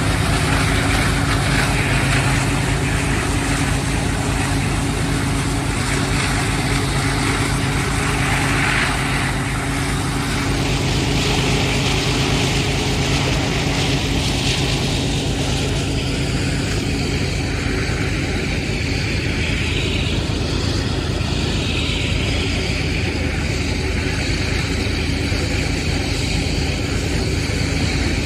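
Diesel locomotive engines running steadily under load as a 120-car freight train climbs a grade, heard from on board the locomotive, with a steady rushing noise over the engine hum.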